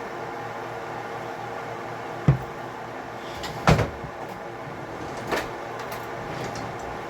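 Three short knocks of kitchen handling over a steady hum; the middle knock, about halfway through, is the loudest.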